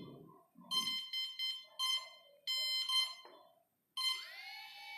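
Brushless drone motor sounding its ESC's beep tones after throttle-range calibration, in a few short groups of high beeps. About four seconds in a rising whine starts as the motor begins to spin.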